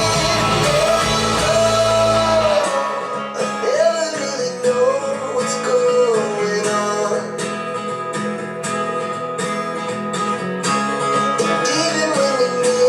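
Song playing through a pair of Mission M71 bookshelf speakers: a singer over plucked guitar. The deepest bass drops out about two and a half seconds in.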